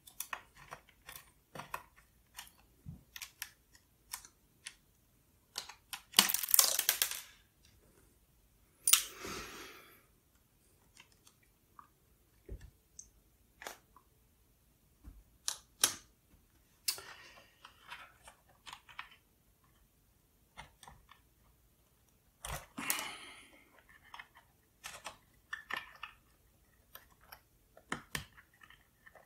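Small clicks, taps and light knocks of a screwdriver and fingers working on the plastic case and hinge screws of an Apple PowerBook 180's display, scattered irregularly, with four louder handling scrapes of about a second each.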